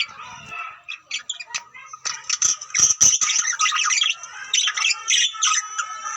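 Songbird song used to stimulate birds to breed: fast, varied warbling and trills, louder from about two seconds in, with a few sharp clicks.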